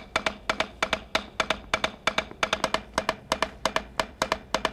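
Drumsticks on a practice pad playing a double-beat (diddle) exercise on a triplet base: each stroke makes two beats, giving a steady, even run of sharp taps.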